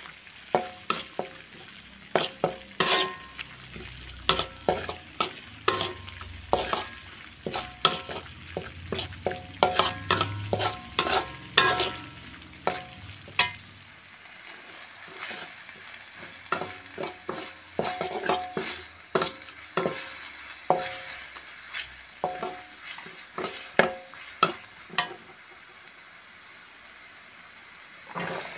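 Metal spatula scraping and tapping against a wok as a spice paste fries in oil, with a steady sizzle underneath. The strokes come in quick runs, each ringing briefly off the metal, and stop a few seconds before the end, leaving only the sizzle.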